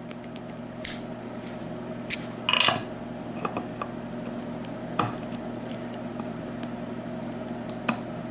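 Small metallic clicks and taps from a Sargent pin-tumbler lock cylinder being worked by hand, its key turned back to the locked position and the retaining clip pried off, with a short metallic scrape about two and a half seconds in. A steady low hum runs underneath.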